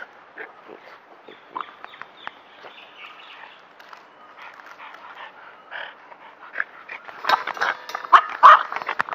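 Dogs barking: a quick run of sharp barks in the last two seconds, after a quieter stretch of scattered light knocks and scuffs close to the microphone.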